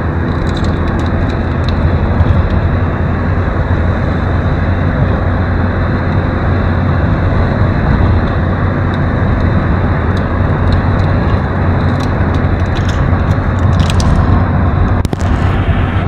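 Steady engine and road noise inside a moving Opel car's cabin at driving speed: a loud, even low rumble with tyre hiss above it.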